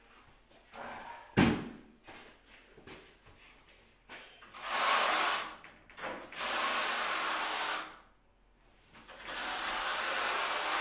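A steel trowel scraping tile adhesive across a wall board in three long strokes, each lasting a second or more. A single sharp knock comes about a second and a half in.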